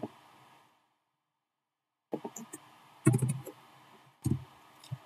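Dead silence, then scattered clicks and dull knocks from a computer keyboard and mouse being used. The loudest knocks come about three seconds in and again just past four seconds.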